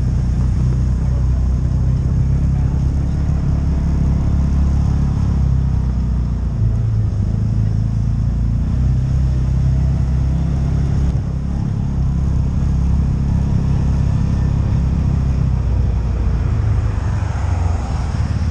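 CFMoto UForce side-by-side's engine running as it drives along a gravel trail, a steady low drone that shifts in pitch a few times, heard close from the hood.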